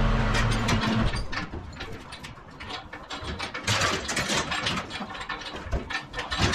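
Ratchet tie-down strap being cranked tight: a run of irregular metal clicks from the ratchet. A low engine hum cuts off about a second in.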